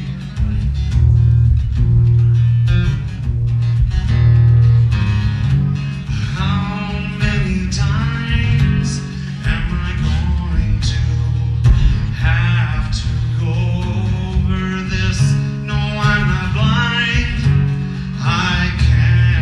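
Acoustic guitar strummed live through a PA, with a man singing a melody over it from about six seconds in.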